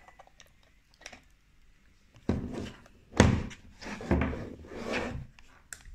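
Handling noise on a wooden table. A few light clicks as a plug is pushed into a 3D-printed box, then a run of thuds and knocks as the box and a metal sensor housing are moved about. The loudest knock comes about three seconds in.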